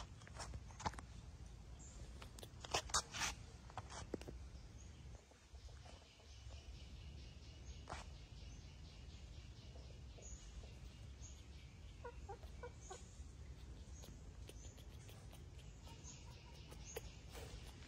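Faint short high chirps from an animal now and then, with scattered clicks and knocks, over a low steady background rumble.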